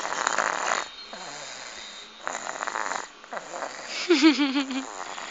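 A person asleep and snoring: two snores about two seconds apart, each lasting about a second, then a short wavering voice-like sound about four seconds in.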